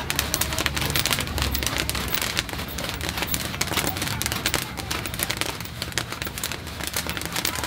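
Corn popping and rattling in a hand-cranked popcorn kettle heated over a charcoal fire: a dense, rapid, steady crackle of kernels.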